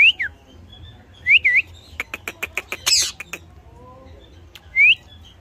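Pet Indian ringneck parakeet calling: short whistled glides, a quick run of sharp clicks, then a harsh squawk, the loudest sound.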